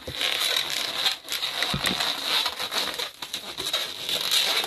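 Latex twisting balloon squeaking and rubbing continuously as it is twisted and folded back on itself into segments.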